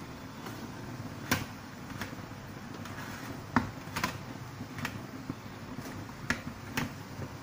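Wooden spatula stirring glutinous rice in an aluminium steamer tray partway through steaming, knocking and scraping against the metal in about eight sharp, irregular taps over a steady low hiss.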